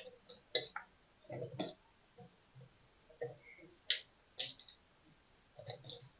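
Small objects being handled while someone hunts for a ring: a handful of light clicks and knocks, spread out and irregular.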